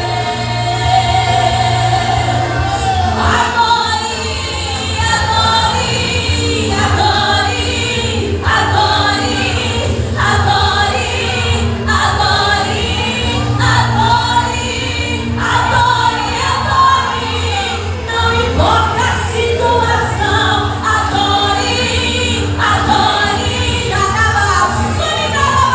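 Church vocal group singing a gospel hymn together, over steady instrumental accompaniment.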